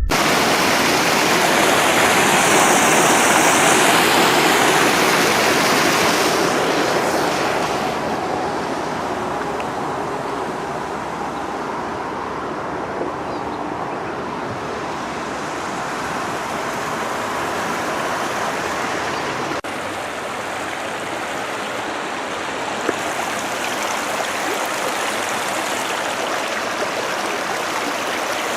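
Steady rushing of river water, mixed with the hum of highway traffic. It is louder for the first several seconds and drops out briefly about twenty seconds in.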